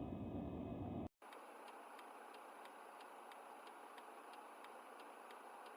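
Road noise in the car cabin cuts off about a second in. It gives way to the Ford Fiesta's turn-signal indicator ticking steadily, about two ticks a second.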